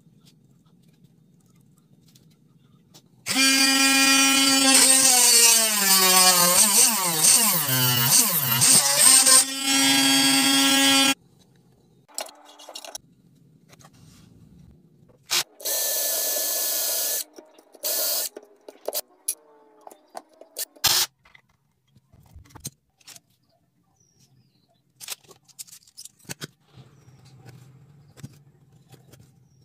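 An electric power tool's motor runs for about eight seconds, its whine sagging in pitch and recovering as it works under load. A shorter burst follows a few seconds later, then scattered light clicks and taps of tools set down on the bench.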